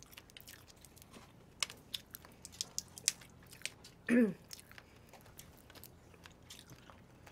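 Cooked shrimp being shelled by hand and eaten close to the microphone: scattered crisp clicks and crunches of shell and chewing. A brief voice sound comes about four seconds in.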